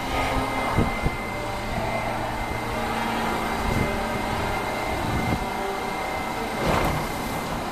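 R68 subway train standing at the platform, its ventilation and auxiliary equipment humming steadily under a thin, steady high whine. Two sharp clicks come about a second in.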